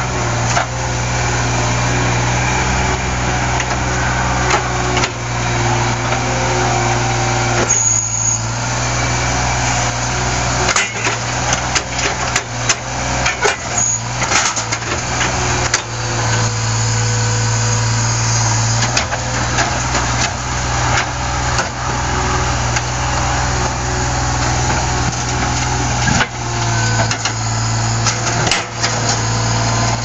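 New Holland LX465 skid steer loader's engine running, its note rising and falling with the work, with many sharp clanks and knocks of metal as the bucket batters and lifts an old wood-fired boiler.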